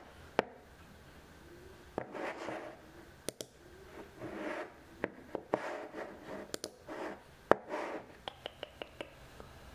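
Typing on a low-profile computer keyboard and working a mouse: a dozen or so sharp, irregular key and mouse clicks mixed with short scraping swishes.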